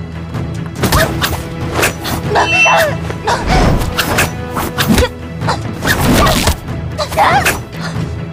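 Dramatic film score under a hand-to-hand fight, with repeated sharp punch and body-blow impact effects and short grunts.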